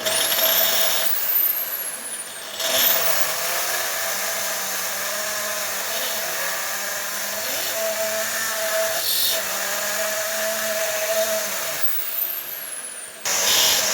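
Electric drill with a countersink bit grinding metal, cutting through the heads of the rivets that hold a steel stamping. The drill starts with a rising whine and runs under load, its pitch wavering as the bit bites.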